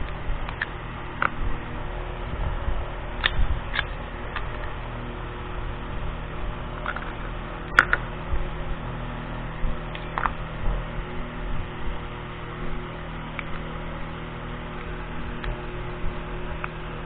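Scattered light clicks and metallic taps as the parts of an Ekol Tisa pistol are handled during disassembly, over a steady electrical hum. The sharpest click comes about eight seconds in.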